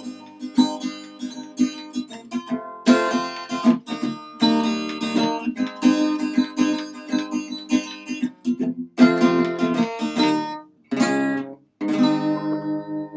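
Acoustic guitar strummed in chords to close out a song, with short breaks near the end and a final chord left ringing and fading.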